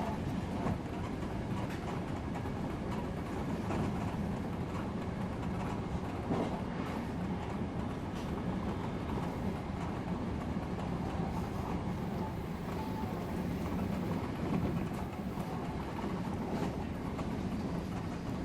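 Odakyu commuter electric train running at speed, heard from inside: a steady rolling and running rumble with a few faint clicks from the wheels over the track.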